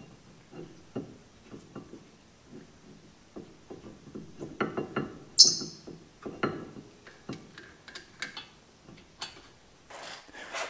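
Scattered light clicks, taps and metallic clinks of disc brake parts being handled at the caliper, with one sharper high click about five seconds in.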